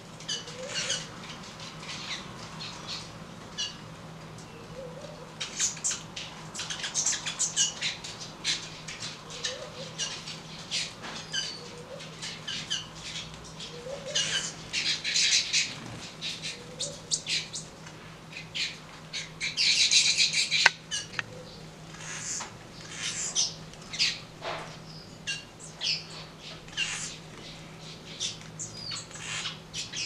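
A flock of small seed-eating birds, southern masked weavers among them, chattering and chirping at a seed feeder: a busy run of short, high calls with thick bursts of chatter about halfway through and again around twenty seconds in. A faint low rising note repeats every couple of seconds underneath.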